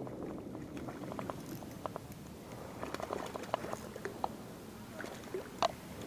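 A spinning reel being cranked as a small smallmouth bass is reeled in: irregular light clicks and patter, with one sharper click near the end.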